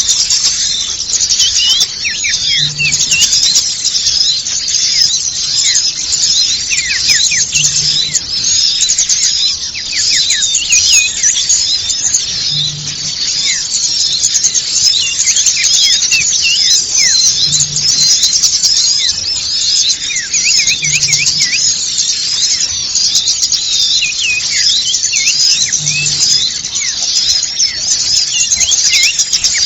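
A bird-lure recording of a dense chorus of many small songbirds chirping and twittering at once, in quick, high, overlapping notes with short sliding calls mixed in.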